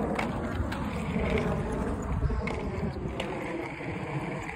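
Inline skate wheels rolling over a concrete sidewalk, a steady rumble with a few sharp clicks along the way.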